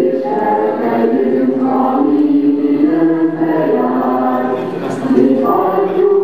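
A group of people singing a song together, moving from one held note to the next.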